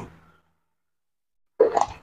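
A person coughing twice: one cough fading just after the start, another about a second and a half later.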